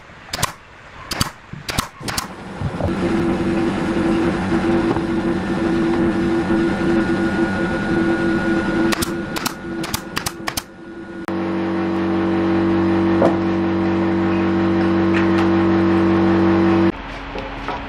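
Electric woodworking power tools: a few sharp knocks, then a tool motor running steadily with cutting noise, switching abruptly about halfway to a different steady motor hum that cuts off suddenly shortly before the end.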